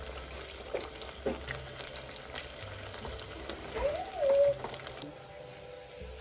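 Pheni dough frying in hot oil in a kadai: a steady sizzle with small crackles while the pieces are turned with a wire skimmer. A brief rising-and-falling tone about four seconds in is the loudest moment. The crackling thins out after about five seconds.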